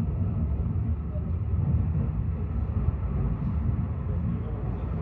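Fløibanen funicular car running downhill, a steady low rumble heard from inside the car as it enters a tunnel.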